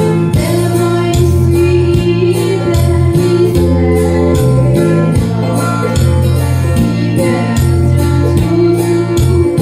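A woman sings a Christian song into a microphone over instrumental accompaniment with a stepping bass line and a steady beat.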